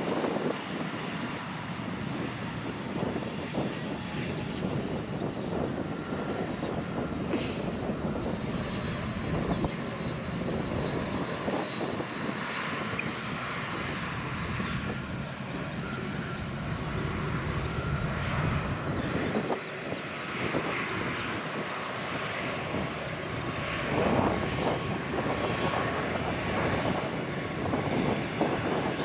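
Jet engines of a four-engine Airbus A380 airliner running as it rolls along the runway: a steady jet noise with a faint high whine.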